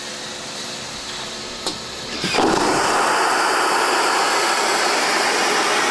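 Aircraft vacuum toilet system on an Airbus A380 waste-system test rig: a steady hum with a click about a second and a half in, then, just after two seconds, a loud rush of air starts abruptly as a flush sucks air and waste down the pipes toward the vacuum tanks.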